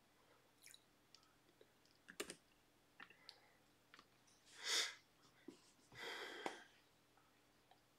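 Faint scattered clicks and taps of hands handling a device, with two short breath-like hisses in the middle, the first the louder.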